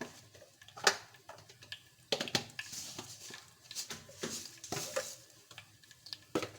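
Mustard and cumin seeds spluttering in hot oil in a kadai: irregular sharp pops over a hissing sizzle that is strongest in the middle.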